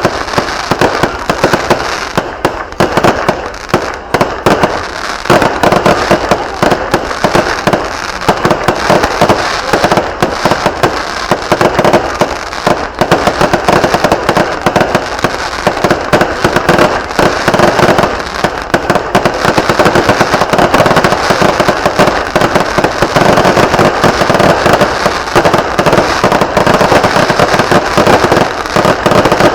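Fireworks and firecrackers going off in a dense, continuous barrage of rapid, loud bangs and crackles, many per second with no pause.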